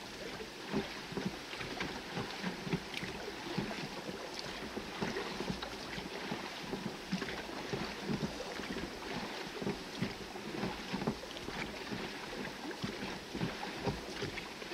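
A small rowboat being rowed: oars working and water splashing and lapping against the hull in frequent short slaps over a steady wash of water.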